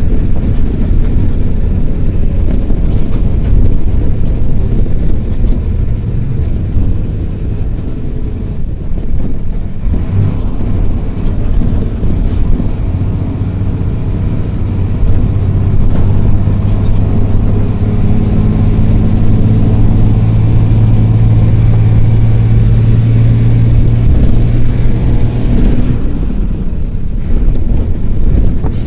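Marcopolo Senior Midi bus on the move, heard from inside the cabin: the diesel engine and road noise make a loud low rumble. A steady engine drone at one pitch comes through more strongly in the second half, then eases off a few seconds before the end.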